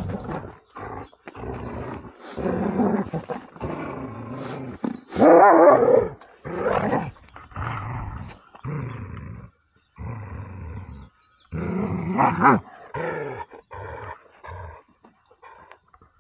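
Dobermann growling in repeated bursts of a second or two while pulling and biting at the handler's hand, loudest about a third of the way in and again about three quarters in.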